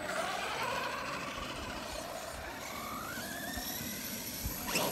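Electric motor and gear whine of a radio-controlled rock crawler being driven, its pitch gliding up and down with the throttle. A sharp knock comes near the end.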